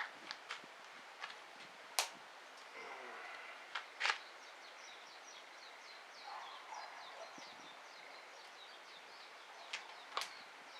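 Wood fire burning in a Solo Stove, crackling with sharp, irregular pops: a few in quick succession at the start, single loud ones about 2 and 4 seconds in, and more near the end.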